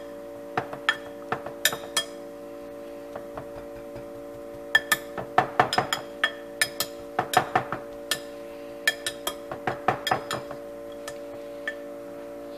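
Metal potato masher knocking against a glass pie dish while boiled potatoes are mashed: irregular clinks and taps, a few at first and coming thick and fast from about five seconds in. A steady hum runs underneath.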